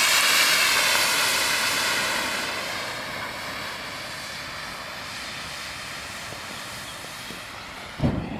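LiPo battery pack venting in thermal runaway: a loud, steady hiss of escaping gas, loudest at the start and slowly fading. About eight seconds in, a sudden low burst as the vented smoke ignites into a fireball.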